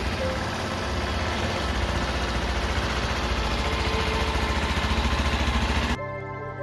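Motorcycle engine idling with fast, even firing pulses. It cuts off about six seconds in, when music takes over.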